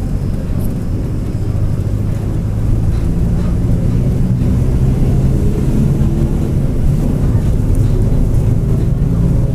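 Mercedes-Benz OF-1722M bus under way: its diesel engine drones steadily with the drivetrain, rising slightly in pitch a few seconds in and then holding. The rear differential is growling.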